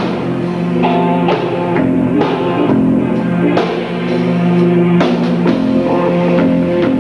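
Rock band playing live: electric guitars holding chords over a drum kit, with a steady beat of drum hits about twice a second.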